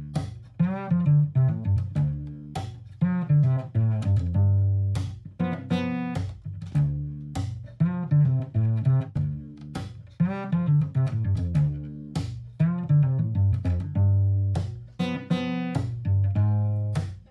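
Instrumental outro music: a run of plucked string notes, each sharply struck and dying away, over a low bass line.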